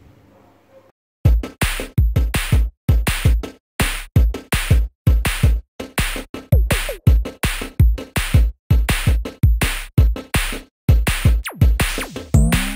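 Background electronic music with a steady, bass-heavy drum beat, starting about a second in, with a sweeping sound near the end.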